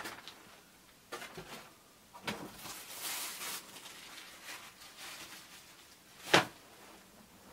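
Folding studio photography umbrellas being handled and pulled from a cardboard box: fabric rustling and light knocks, with one sharp snap about six seconds in.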